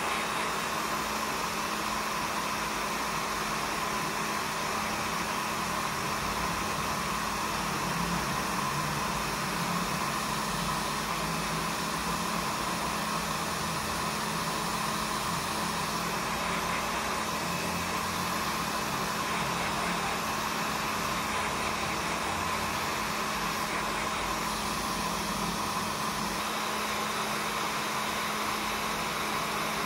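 Hot air rework gun blowing steadily, an even rushing hiss with a constant hum under it, as it heats the board to solder a replacement RAM power-supply chip.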